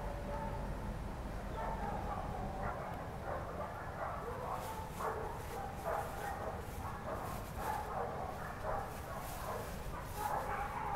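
An animal's short whining calls, repeated on and off, over a low rumble that fades about three seconds in.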